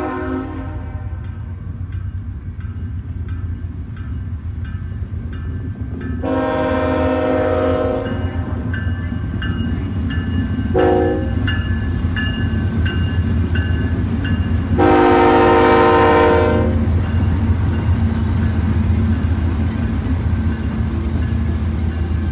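Freight train locomotive sounding its horn in the grade-crossing pattern: the end of one long blast, then another long blast, a short one and a final long one, as the train runs past with a steady low diesel rumble and wheel clatter.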